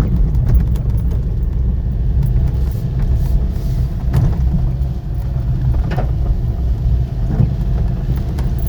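Steady low rumble of a car driving on a wet road in the rain, heard inside the cabin, with a few faint knocks.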